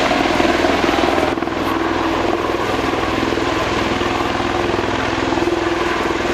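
Bell Boeing MV-22 Osprey tiltrotor in flight, its two large proprotors making a steady, loud thrum with a rapid pulsing beat over a low engine hum.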